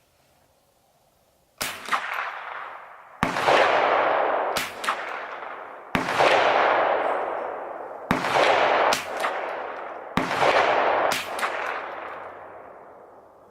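Five shots from a semi-automatic .22LR rifle, spaced roughly two seconds apart, each ringing on in a long fading echo. Fainter sharp cracks fall between them.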